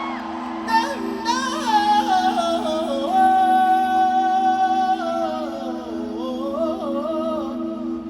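Live pop concert music: a steady sustained low chord under a wavering melodic vocal line, which holds one long note in the middle before moving on.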